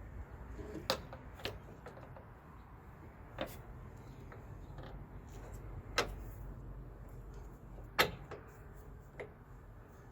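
Sharp metallic clicks and knocks, about six spread over several seconds with the loudest near the end, from battery cable ends and terminal hardware being handled and fitted onto the truck batteries' negative posts, over a low steady hum.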